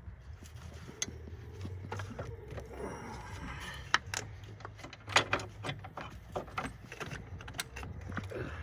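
Irregular metallic clicks, clinks and knocks of the metal battery hold-down bracket and its bolt being handled around the battery tray, over a low background hum.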